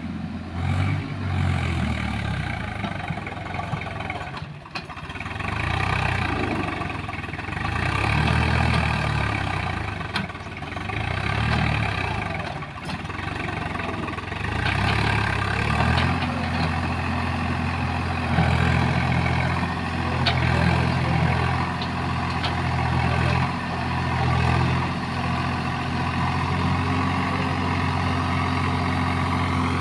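Swaraj 735FE tractor's three-cylinder diesel engine, its speed rising and falling in turn as the tractor manoeuvres with a loaded tipping trolley. From about halfway through it runs at a steady speed while the trolley is hydraulically tipped to dump its load of mud.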